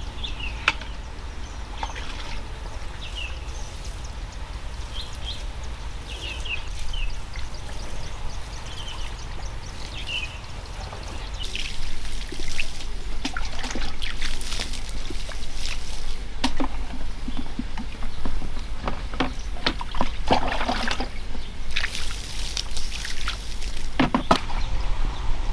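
Water poured and splashed by hand from a bucket onto soil and rice-husk mulch, coming in uneven gushes and splashes from about halfway through.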